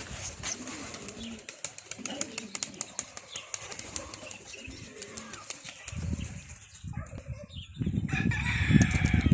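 Caged birds chirping and shuffling with small ticks, then from about six seconds in a loud flutter of flapping wings, with bird calls over it near the end.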